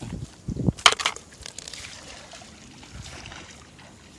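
A fish dropped into a plastic bucket among other fish: a few wet thumps and sharp knocks in the first second, the loudest about a second in, then only faint outdoor background.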